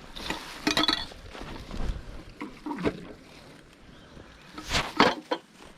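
Litter being picked up and handled by hand: irregular rustling, knocks and clinks, with the loudest knocks near the end.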